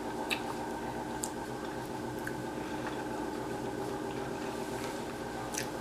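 Soft chewing and mouth clicks of someone eating, a few faint smacks over a steady electrical-sounding hum.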